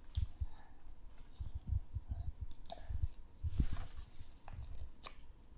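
Toy packaging and plastic parts being handled: irregular low bumps and knocks with a few sharp clicks, and a brief crinkle about three and a half seconds in.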